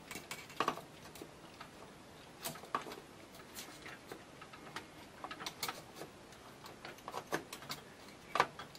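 Scattered light clicks and taps, irregular and unrhythmic, from handling the next DDR3 memory module by hand.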